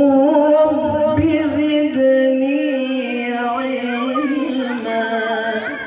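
A male qari reciting the Qur'an melodically through a microphone and PA. He holds one long sung phrase with wavering, ornamented pitch, and it slowly fades near the end.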